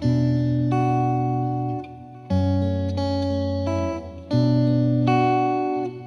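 Slow instrumental music on a plucked guitar-like instrument: a phrase of sustained notes over a deep bass note begins three times, about every two seconds, each fading before the next.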